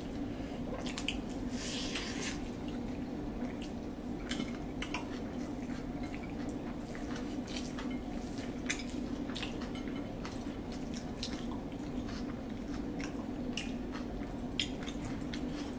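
Eating sounds: small wet squishy clicks of fingers working through biryani rice, and chewing, scattered irregularly over a steady low hum.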